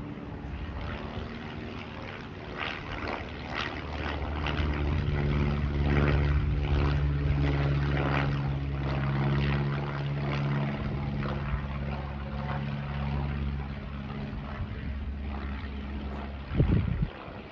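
An aircraft passing overhead: a low engine drone made of several steady tones swells about four seconds in, holds, then fades away near the end.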